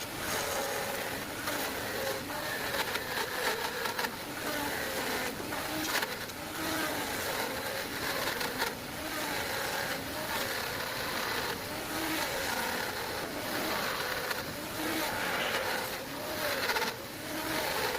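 Electric power tool cutting a groove in wood: a steady motor noise whose pitch wavers as the cut loads it, with occasional sharp ticks.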